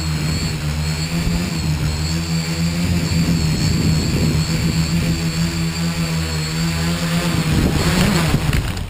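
Tricopter's electric motors and propellers running steadily, heard from a camera on the craft itself, with a high wavering motor whine. The sound swells near the end as it comes down, then cuts off sharply as it lands.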